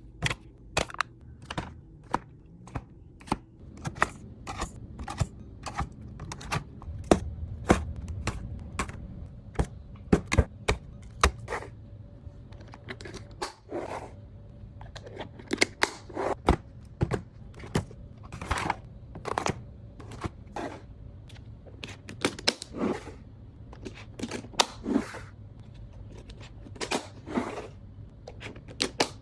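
Irregular clicks, taps and knocks of grocery items and plastic containers being handled and set down during a fridge restock, a few to several per second.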